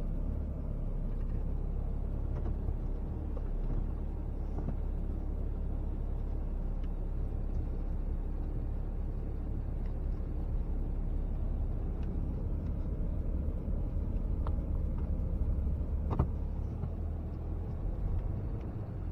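Steady low engine rumble of a vehicle or machine running, with a few faint clicks and knocks.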